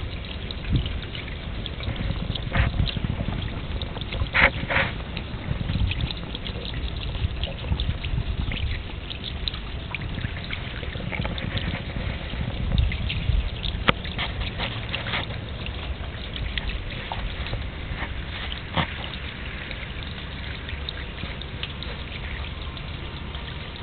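Rainwater running down inside a metal gutter downpipe: a continuous trickling rush with scattered sharper drips and splashes.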